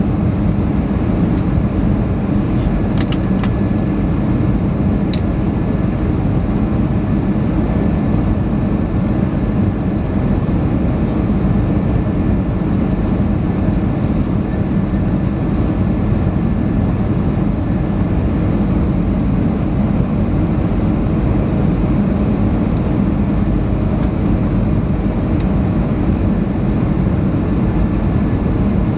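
Airbus A320 cabin noise on approach, heard from a window seat beside the wing: a steady low rumble of the turbofan engines and rushing air, with a faint steady whine above it and a couple of faint ticks early on.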